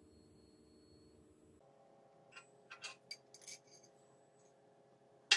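Polished steel parts of a homemade T-handle wrench clinking together as the rod is slid through its sleeve. There is a run of light metal clinks about two to four seconds in, then one sharp, louder clink near the end.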